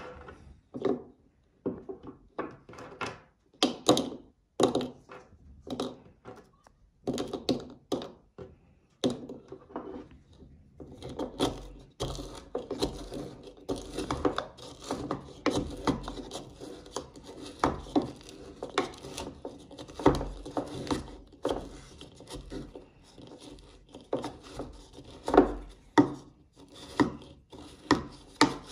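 Pestle pounding and grinding jelly candies in a mortar: separate knocks at first, then from about ten seconds in a denser run of quick blows with rubbing against the bowl.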